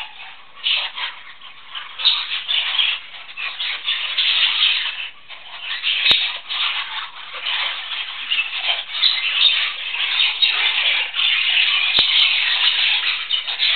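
Budgerigars chattering and warbling, a dense, unbroken twitter, with two short sharp clicks about six and twelve seconds in.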